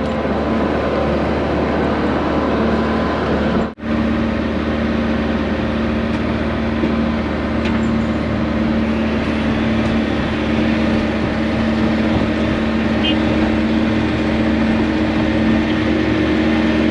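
Diesel engine of heavy equipment running steadily. The sound cuts out for a moment about four seconds in.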